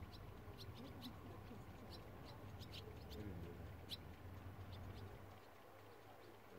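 Faint outdoor ambience: scattered short, high bird chirps, about a dozen, over a low rumble and a faint murmur of distant voices. The rumble eases about five seconds in.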